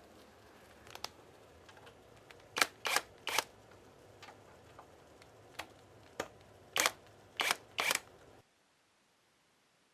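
Sharp clicks and knocks of an electric scooter and tools being handled as the scooter is turned over to get at its screws, coming singly and in quick groups of three. The sound cuts off abruptly about eight seconds in.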